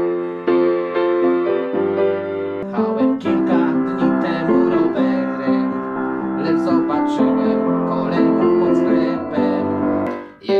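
Hellas upright piano played with both hands: held chords at first, then a busier improvised passage of melody over chords from about three seconds in.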